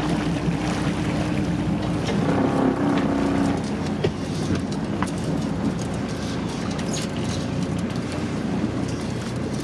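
Boat engine running steadily, a low drone, with a couple of faint clicks partway through.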